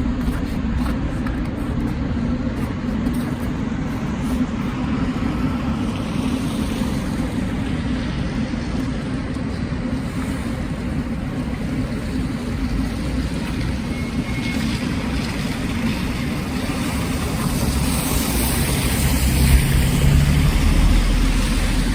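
Busy city street traffic noise with a steady low hum. Near the end a vehicle passes close by and the traffic grows louder for a few seconds.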